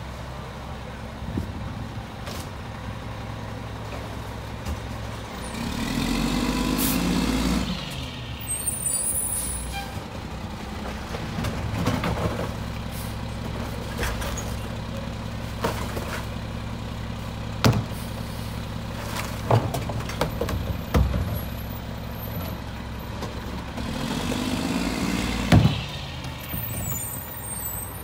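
Mack MR garbage truck's diesel engine idling steadily, speeding up twice, about six seconds in and again near the end, as the rear packer runs. Sharp clunks and bangs in between as recycling bins are knocked against the hopper and emptied by hand.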